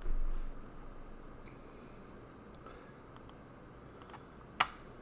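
Computer mouse clicks over low room noise: a few faint ticks and one sharp click near the end, after a short low thump at the start.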